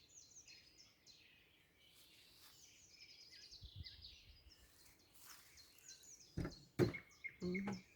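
Songbirds chirping and singing in a spring woodland, many short high calls overlapping. A couple of knocks sound near the end.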